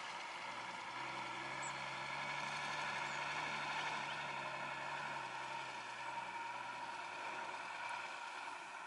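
Distant laden heavy truck's engine humming steadily as it crawls along, swelling slightly and then fading out near the end, over a constant high background hiss.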